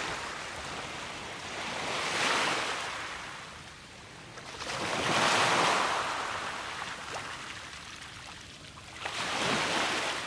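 Sea waves washing onto a beach, a rushing hiss that swells and falls away four times.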